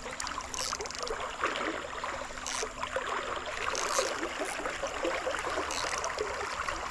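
A shallow stream running and trickling over rocks, with a few short high hisses on top.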